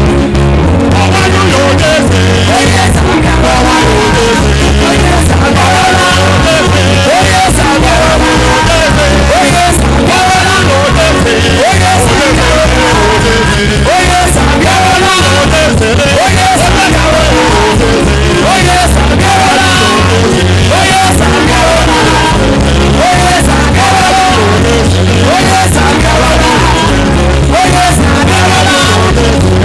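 Loud praise music with singing over a steady bass and drum beat.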